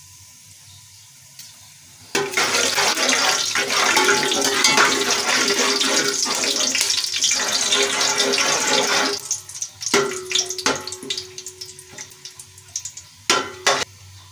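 Whole spices sizzling loudly in hot oil in an aluminium pot as they are stirred, starting about two seconds in and dying down about seven seconds later. In the last few seconds there are a few knocks of a metal spoon against the pot.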